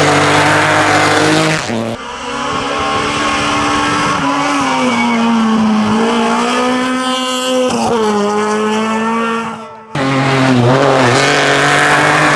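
Hillclimb race car engines running at high revs, in three separate passes joined by sudden cuts about two seconds in and near the end. In the middle pass the engine note holds, sags and rises again.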